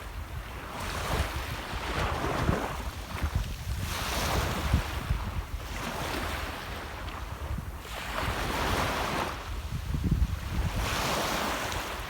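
Sea waves washing onto the shore, surging and receding every few seconds, with wind buffeting the microphone.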